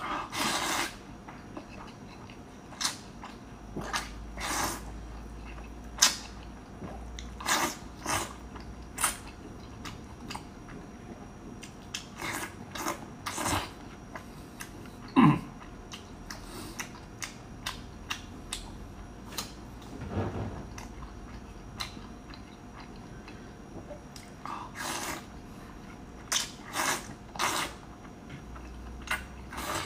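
Close-up eating of wide noodles in beef noodle soup: repeated slurps of noodle strands and wet chewing, in irregular short bursts.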